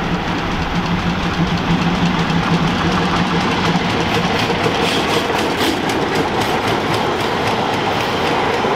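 Metre-gauge steam train passing close by: the locomotive and its historic carriages running past, with a quick run of regular clicks from the wheels over the rails as it goes by, after a low steady hum in the first few seconds.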